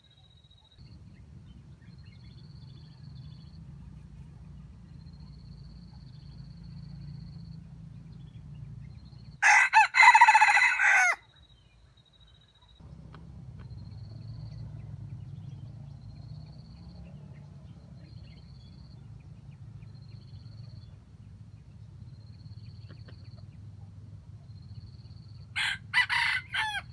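Junglefowl rooster crowing loudly once, about ten seconds in, then again more briefly and less loudly near the end. Between crows there is a faint steady low hum and short, repeated high chirps.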